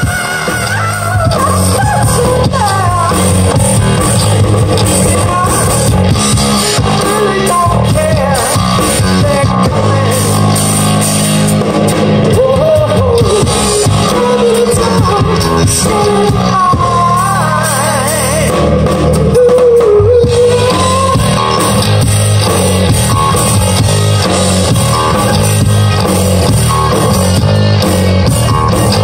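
Live rock band playing loud: a singer's melody over electric guitars, bass guitar and a drum kit.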